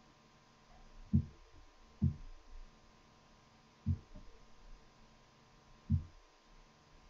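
Four short, dull low thumps, spaced irregularly over several seconds, over a faint steady hum.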